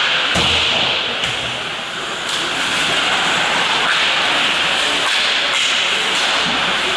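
Ice hockey play: skate blades scraping and carving the rink ice as a steady hiss, with several sharp knocks of sticks, puck and boards.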